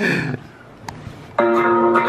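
Electric guitar, played by the stranger on the video call and heard through the laptop: a held chord comes in about one and a half seconds in and rings steadily.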